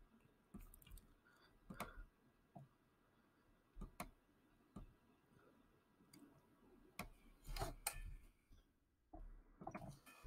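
Faint, scattered clicks of a computer mouse, some in quick pairs, over near silence.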